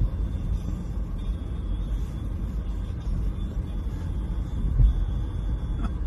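Road and engine noise inside a moving car's cabin: a steady low rumble, with one louder thump about five seconds in.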